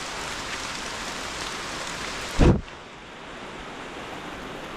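Heavy rain falling steadily, with a brief loud noise about halfway through, after which the rain sounds duller.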